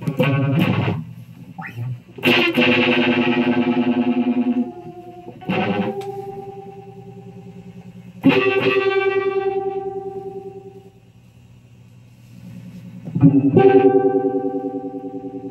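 Electric guitar played through effects pedals and an amplifier: about five chords strummed and left to ring out and fade, over a steady amp hum.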